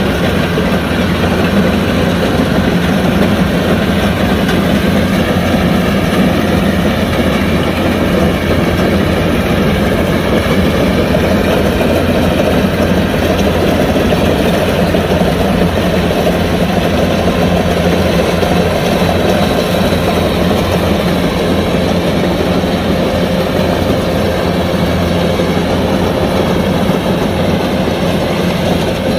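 Kubota DC105X combine harvester running steadily, its diesel engine and machinery making a loud, even drone throughout.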